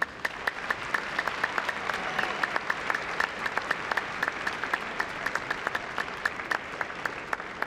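Audience in a large show arena applauding: a steady round of many hands clapping that starts suddenly and eases off slightly near the end.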